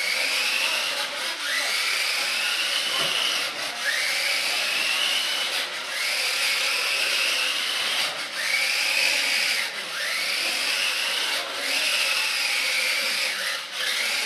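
Electric drive motor of a Nikko radio-control Citroën DS3-R toy car whining, rising in pitch each time the car pulls away, with short breaks between runs, about seven times, over the hiss of its tyres on a wooden parquet floor.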